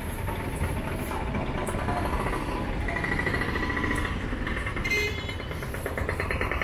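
Auto-rickshaw engines running close by with a rapid chugging clatter over a steady traffic rumble. A steady high tone sounds for about a second around three seconds in.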